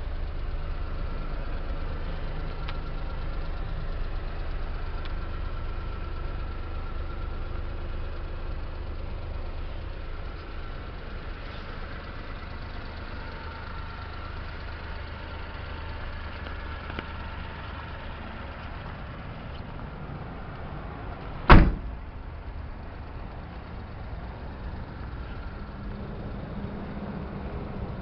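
Suzuki Carry kei truck's engine idling with a steady low hum, and a truck door slammed shut once about three quarters of the way through, the loudest sound.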